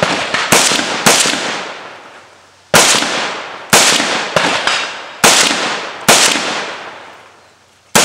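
AR-15 rifle fired in a string of about eight shots at an uneven pace, some close together and some more than a second apart. Each crack is followed by a long echo that dies away over a second or more.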